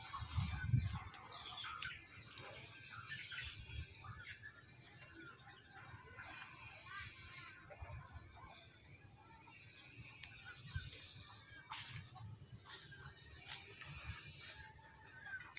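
Birds calling, many short chirps over a thin, steady high tone. Low rumbles from wind or handling on the phone's microphone in the first second.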